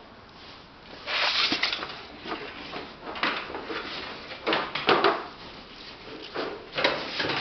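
Irregular clatter, knocks and scraping of equipment being handled, in several loud bursts about a second, three seconds, five seconds and seven seconds in.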